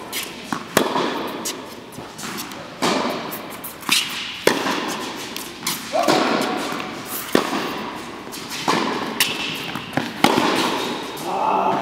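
Tennis rally: a tennis ball struck back and forth with polyester-strung rackets and bouncing on the court, a sharp pop roughly every second, each echoing in a large indoor hall.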